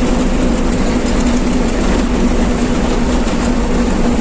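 Heavy vehicle's engine running steadily while driving, heard from inside the driver's cab as a loud, even drone.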